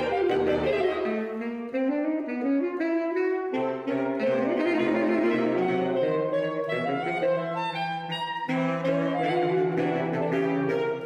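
Saxophone quartet of soprano, alto, tenor and baritone saxophones playing a twelve-tone piece written to evoke a train. Quick stepping runs of notes move over lower parts, with a long held low note near the end.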